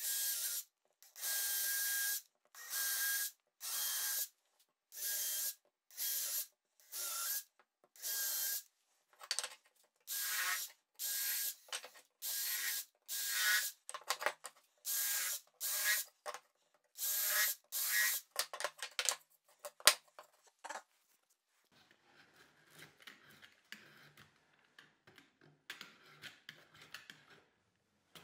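DeWalt cordless drill running in about twenty short runs, each under a second, with its motor whine as it bores into wooden boards. A sharp knock comes just before the runs stop. Then comes a quieter, uneven scraping as a knife blade is drawn along the edge of a board.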